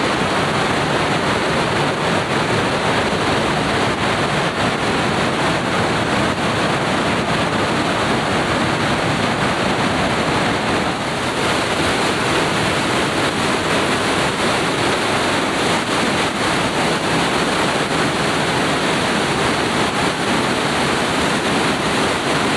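Trümmelbach Falls, glacier meltwater pouring through a narrow rock gorge inside the mountain: a loud, steady rushing of falling water.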